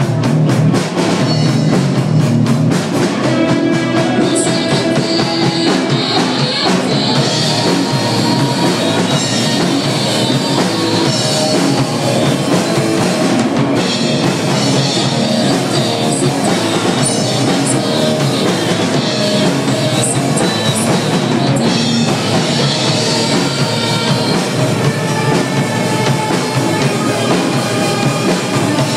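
Live rock band playing: a drum kit driving the beat under electric guitar, loud and steady throughout.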